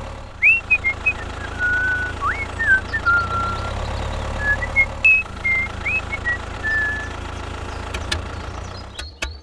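A tractor engine running steadily at idle with a low, even hum, over which a string of short, high whistled notes rises and falls. The engine sound fades near the end, where a few sharp clicks come in.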